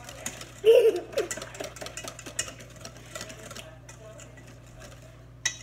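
A utensil stirring thick pumpkin pie filling in a stainless steel mixing bowl: a quick run of clicks and scrapes against the metal that thins out after about three and a half seconds.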